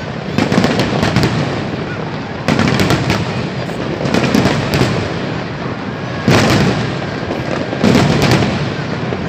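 Aerial fireworks bursting in a display: about four loud bangs, each trailing off into crackle and rumble, over a steady wash of bursts.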